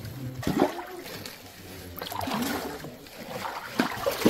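Feet splashing through shallow water, one wading step about every second or so.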